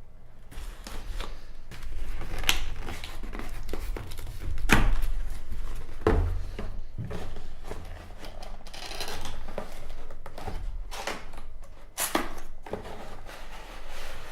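An iPad retail box and its wrapping being handled on a table: irregular knocks, rustles and scrapes.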